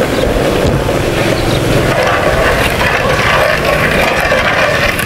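Gas stove burner running with a steady rush and low rumble under a wok of sugar and water being heated to dissolve the sugar.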